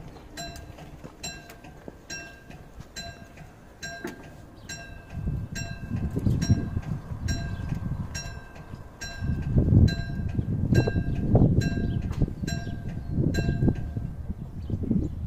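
Level crossing warning bell in an SPX barrier unit ringing with evenly spaced strikes, about two a second; it stops near the end. From about five seconds in, bursts of low rumbling noise come and go and are louder than the bell.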